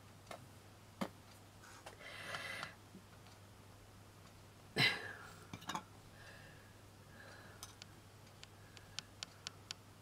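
Hands handling modelling clay and small craft items on a cutting mat: scattered soft clicks and taps, a brief rustle, a sharper knock about five seconds in and a quick run of light ticks near the end, over a steady low hum.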